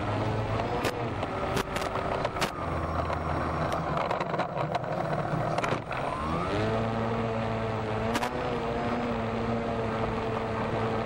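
Electric motor and propeller of an RC airplane running in flight, its pitch shifting with the throttle in the first half, then holding steady from about six seconds in, over wind noise. A few sharp clicks cut through it.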